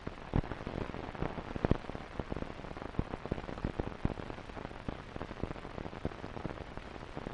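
Surface noise of an old 1950s film soundtrack: a steady hiss with many irregular clicks and pops.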